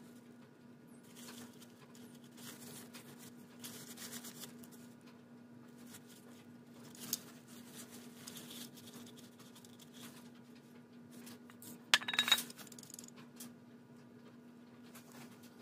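Hand tools and small metal parts clinking and rubbing during car repair work, with a few sharper metallic clinks, the loudest about twelve seconds in, over a faint steady hum.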